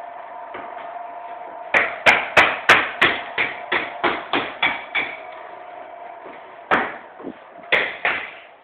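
A quick run of about a dozen knocks, roughly three a second and fading, then a few more near the end, over a steady hum.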